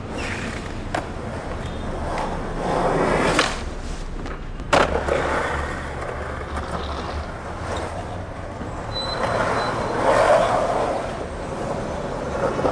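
Skateboard wheels rolling on concrete, swelling up and fading away twice. A few sharp clacks come through, the loudest just under five seconds in.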